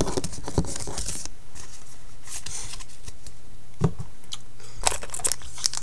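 Trading cards being handled: irregular short rustles, slides and light taps of cards.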